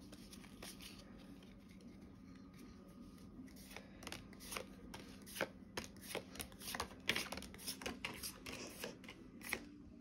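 Pokémon trading cards being flicked and slid one over another in the hands, a run of quick, irregular papery snaps. It starts faint and becomes frequent about halfway through.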